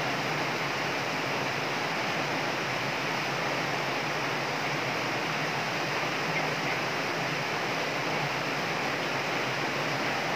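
Water rushing and churning over a low concrete weir in a concrete channel, a steady, unbroken rush of white water.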